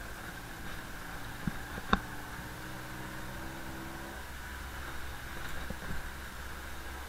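Engine of an open-sided passenger vehicle running at low road speed, heard muffled through an action camera's waterproof housing. Two sharp knocks come about a second and a half and two seconds in, the second the loudest.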